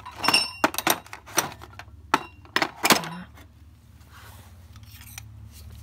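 Steel sockets and a ratchet handle from a Kingtony socket set clinking and knocking as they are set back into the case's moulded tray: a quick run of sharp metallic clinks, some ringing briefly, that stops about three seconds in.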